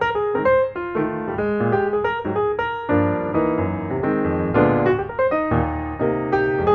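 Piano music: a quick, steady run of notes, with fuller chords in the lower register from about three seconds in.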